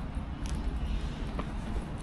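City street ambience: a steady low traffic rumble with two short clicks, about half a second and a second and a half in.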